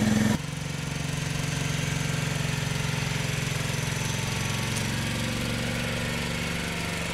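Small engine of a ride-on backyard miniature locomotive running steadily as it hauls a loaded firewood car, a steady hum that drops a little in level about a third of a second in.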